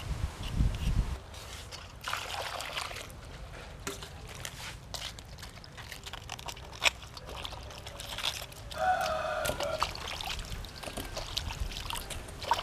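Vegetables being washed by hand in a metal bowl of water: irregular splashing, sloshing and trickling, with small clicks as pieces knock together. There are a few low knocks at the start, and a brief high-pitched tone about nine seconds in.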